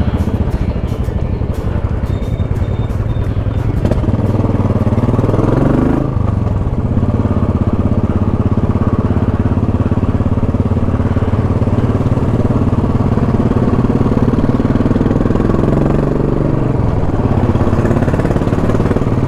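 Royal Enfield Classic single-cylinder motorcycle engine running under way, heard from the rider's seat. It revs up about four seconds in, drops at a gear change around six seconds, then runs steadily. It rises and shifts again near the end.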